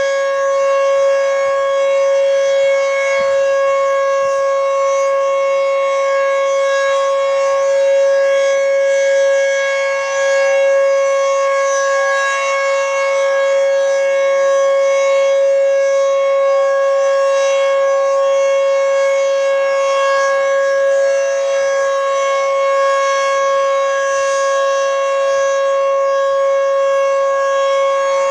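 Federal Signal Fedelcode Model 20 dual-rotor outdoor warning siren sounding a steady tone at full speed during its monthly test. The pitch holds level throughout, with only slight swells in loudness.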